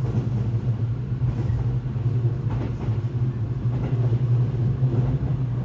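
Cabin sound of a JR Central 313-series electric train running at speed: a steady low hum and rumble from the wheels on the rails and the running gear.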